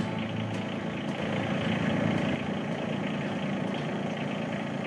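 Yanmar SC2450 compact tractor's diesel engine idling steadily.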